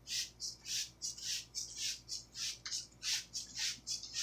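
Hand trigger spray bottle of plain water spritzing a fabric green screen in quick repeated pumps, about three short hissing sprays a second, to dampen the fold creases.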